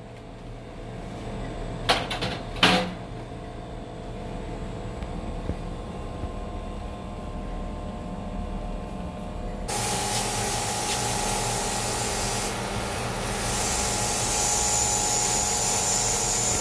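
High-pressure water jet spraying onto a wall-mounted air conditioner: a steady hiss that starts suddenly about two thirds of the way through. Before it there is a steady hum, broken by two sharp clicks near the start.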